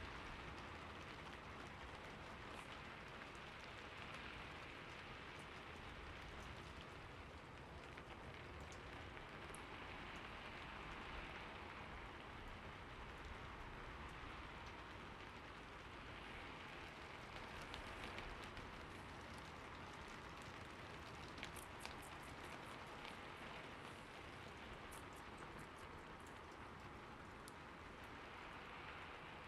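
Faint, steady rain-like hiss that swells gently every five or six seconds, with scattered light ticks.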